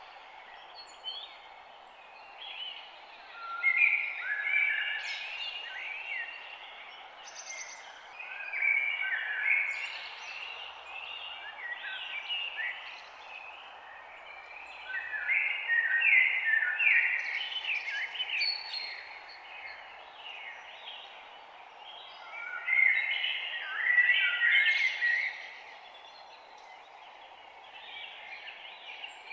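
A songbird singing in repeated phrases of quick chirps and whistled notes, a burst of song every several seconds, over a steady background hiss.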